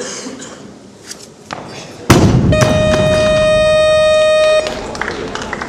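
Loaded barbell with bumper plates dropped onto the lifting platform after a failed 130 kg snatch: one loud crash about two seconds in, then a steady electronic buzzer tone lasting about two seconds.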